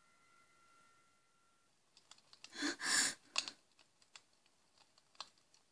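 Campfire crackling: irregular sharp pops and snaps starting about two seconds in, with a louder breathy rush a second later. Before that, a faint held tone fades out.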